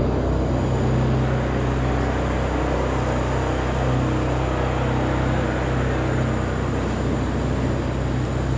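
Steady low rumble of a running motor vehicle, a constant deep hum under a wash of noise.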